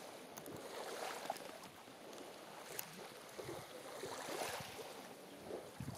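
Faint, even outdoor hiss of light wind and lapping lake water.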